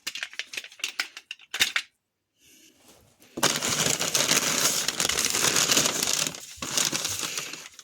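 A few light clicks and knocks of hard items being handled. Then, about three and a half seconds in, a long stretch of paper crumpling and crinkling as wrapping paper is pulled off an item.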